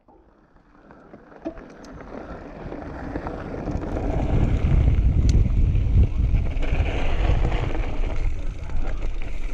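Wind buffeting the action camera's microphone over the rumble of mountain bike tyres rolling on a gravel road. It grows louder over the first four seconds, then holds steady, with a few small clicks.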